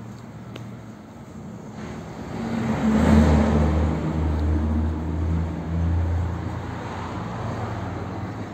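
Thunder rumbling: it builds about two seconds in, peaks a second later, then rolls on in a few low swells before fading.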